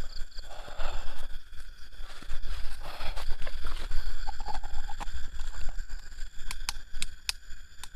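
Gear being handled and rustled, then a run of sharp clicks near the end: a flashlight's switch pressed over and over as it fails to turn off. A low rumble of handling on the microphone runs underneath.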